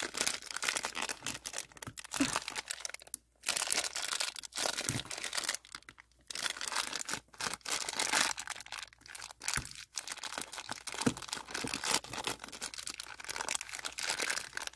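Sealed plastic packet crinkling and crackling irregularly as hands pull and twist at it, trying to tear it open. It stops briefly a couple of times.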